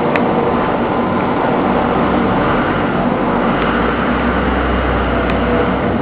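Steady industrial machinery noise with a constant hum, its low rumble growing stronger from about two seconds in and easing near the end.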